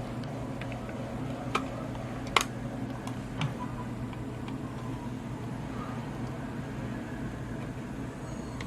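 Steady low electrical hum with three faint, soft clicks in the first few seconds, small plastic handling sounds from a computer mouse being worked on.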